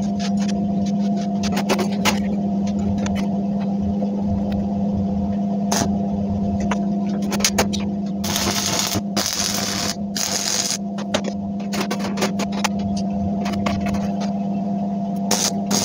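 A steady low mechanical hum runs under light metallic clinks and scrapes as welded steel pot-stand rings and a metal pot are handled on a steel stove top. A longer scraping, hissing noise comes about halfway through and again near the end.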